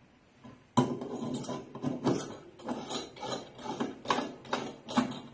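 Irregular clinks and knocks of stainless steel keg parts being handled and fitted together, a few a second, starting about a second in.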